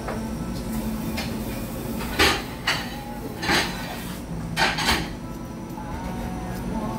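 Metal cutlery clinking against oyster shells and a metal serving platter: about half a dozen sharp clinks, the loudest a little after two seconds in, over a steady low background hum.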